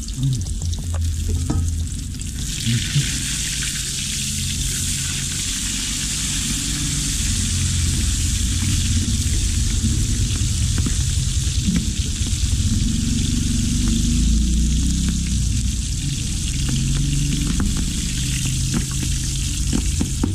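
Two whole milkfish (bangus) frying in hot oil in a wok, sizzling steadily. The sizzle grows louder about two seconds in, after the fish have been turned over.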